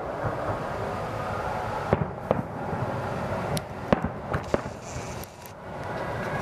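Fireworks display: aerial shells bursting in a string of sharp bangs. The bangs start about two seconds in and come irregularly for the next few seconds, over steady background noise.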